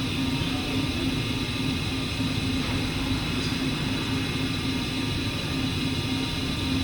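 Hurco CNC milling machine running steadily: a constant machine hum that pulses rapidly, with a few steady high tones over it.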